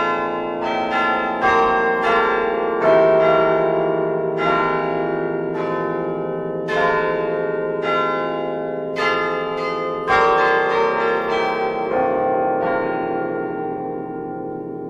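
Church bells of several pitches ringing, struck over and over in an uneven pattern, each stroke ringing on into the next. The strikes stop about twelve seconds in and the ringing dies away.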